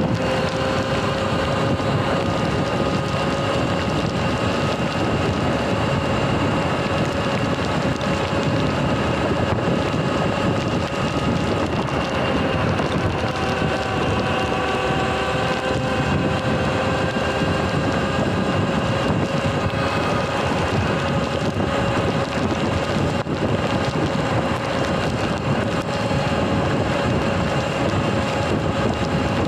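Sur-Ron Light Bee electric dirt bike riding at a steady speed: an even electric motor and drivetrain whine over tyre hiss on the wet road, with wind buffeting the microphone.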